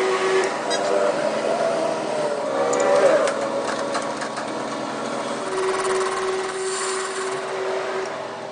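A workshop machine running with a steady hum, with a few light clicks and scraping noises in the first half.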